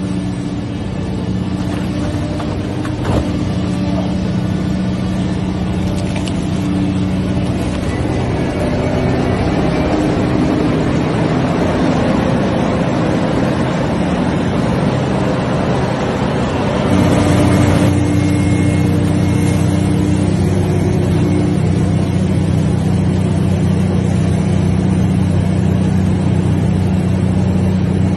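Large excavator's diesel engine running steadily, with a noisier stretch in the middle and a step up in level about two-thirds of the way through.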